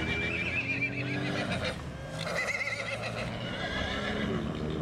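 New Forest pony whinnying, a quavering call repeated several times, over a steady low engine hum.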